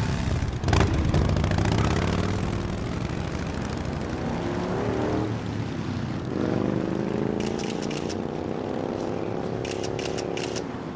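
Motorcycle engine accelerating. Its pitch climbs, drops at a gear change about halfway through, then climbs again.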